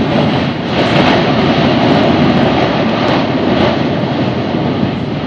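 Stromboli volcano erupting: gas jetting from the summit crater throws up lava spatter with a loud, steady rushing noise.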